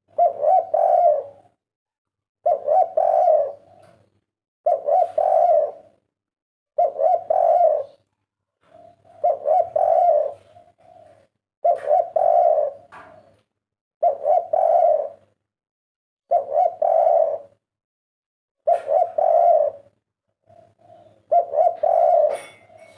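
Spotted dove (tekukur) cooing its 'kuk 3' song: a short phrase of a few coos, repeated about ten times at a steady pace of roughly one every two seconds.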